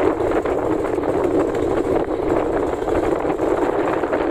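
An engine running steadily and loudly, a dense continuous drone with no change in pitch.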